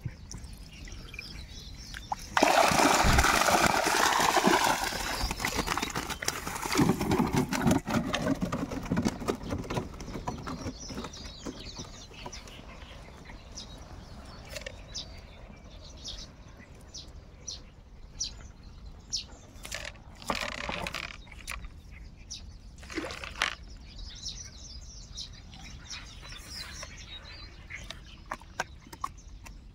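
Water splashing and sloshing in shallow reedy water, in a loud rush a couple of seconds in and again around seven seconds, then quieter with scattered small clicks and splashes.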